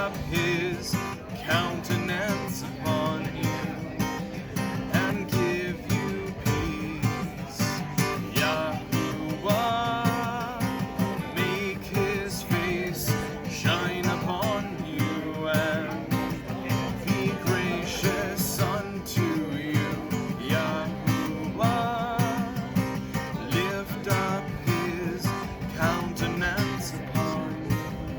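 Acoustic guitar strummed in a steady rhythm, with a voice singing along in long, wavering notes.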